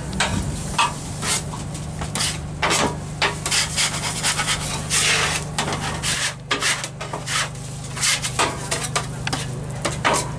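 Metal spatula scraping and chopping across a flat-top griddle in quick, irregular strokes, over a steady low hum.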